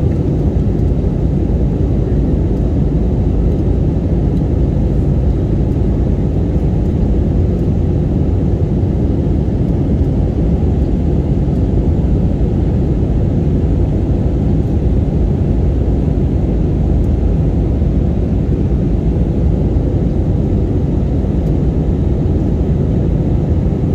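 Steady engine and airflow noise inside a jet airliner's cabin during the climb after takeoff, a deep even rush with no changes.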